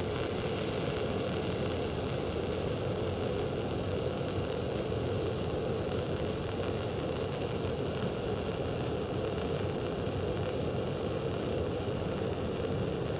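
Self-shielded flux-cored arc welding with .035 NR-211-MP wire: the arc running steadily without a break. The contact tip is held too close to the work (too short a contact-tip-to-work distance), so the flux inside the wire is not properly preheated.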